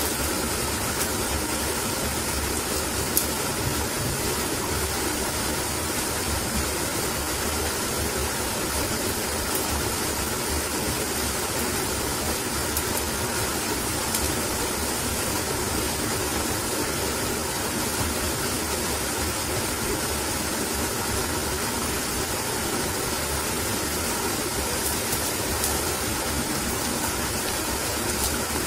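Steady, even rushing noise of the outdoor surroundings, with no distinct events.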